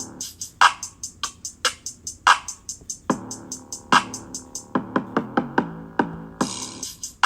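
Background music: an electronic beat with a drum machine's quick hi-hat ticks and snare hits over short synth notes.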